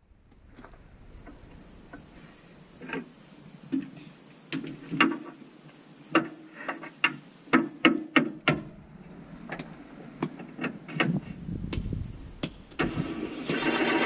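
Scattered metal knocks, clinks and scrapes of hand tools and parts being worked inside a Bobcat skid steer's engine compartment, as a fan-shroud bolt is worked into line. Near the end a steady mechanical whirring starts and becomes the loudest sound.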